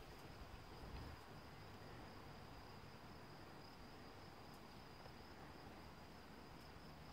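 Near silence with a faint, steady high-pitched insect trill.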